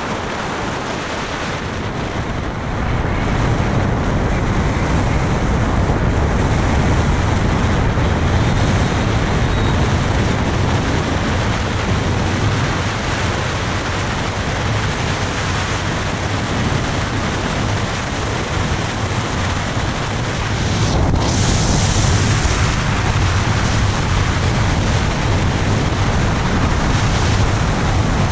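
Wind rushing over the microphone while riding a Honda Forza 250 scooter at highway speed, with a steady low rumble of the scooter and road underneath. The rush grows louder about three seconds in.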